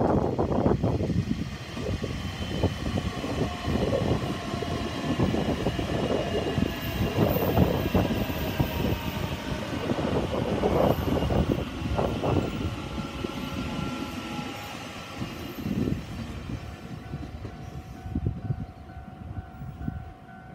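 Taiwan Railways TEMU2000 Puyuma tilting electric train running past on the track, a continuous rumble of wheels on rail with irregular clacks over the joints. It fades over the last few seconds as the train pulls away.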